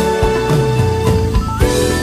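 Instrumental background music with a bass line and drums; a high held melody line comes in about one and a half seconds in.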